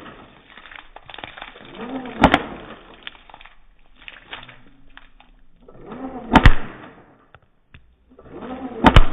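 Slowed-down sound of a battery-powered airsoft M4 firing single shots: three shots, each a low, drawn-out whir from the motor and gearbox that builds to a sharp crack.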